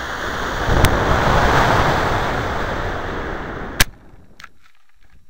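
Onboard audio of a model rocket climbing on an Estes C6-3 motor: a loud, steady rush of motor exhaust and air streaming past the body-mounted camera, easing off after about three seconds. A faint sharp click comes about a second in, and a louder click near four seconds, after which the sound drops sharply.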